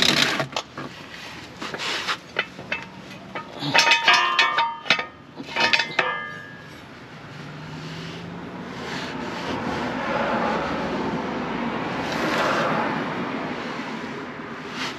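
Metal clanks and clicks of hands and tools working on the tow hitch under an SUV, several with a short ringing tone, bunched in the first six seconds. After that a steady rushing noise swells and fades.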